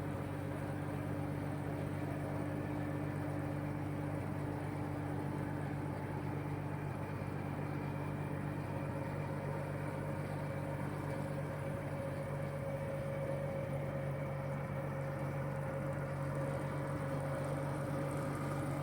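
1976 Allis-Chalmers Gleaner F combine running steadily: a constant low engine drone with a steady higher whine above it.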